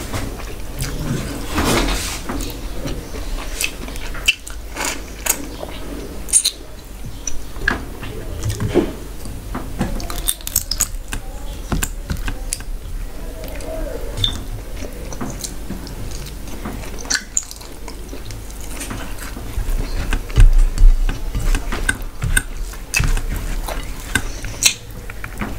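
Close-miked eating sounds: fingers squishing and mixing rice with curry on a steel plate, with many irregular wet clicks and smacks of chewing.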